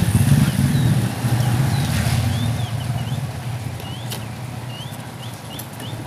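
A low engine rumble, like a passing motor vehicle, fading away over several seconds, with birds chirping high above it and two light clicks.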